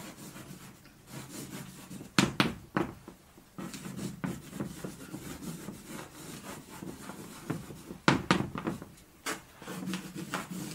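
Chalk writing on a blackboard: scratchy strokes and short taps as letters are written, bunched together a couple of seconds in and again about eight seconds in.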